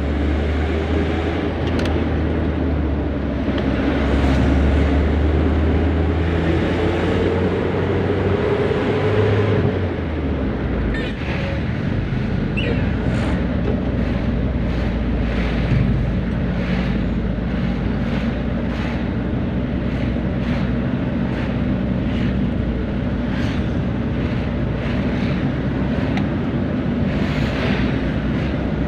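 Tuned Isuzu Elf minibus engine running on the road, its pitch climbing slowly and then dropping about ten seconds in, as at a gear change, before running on steadily.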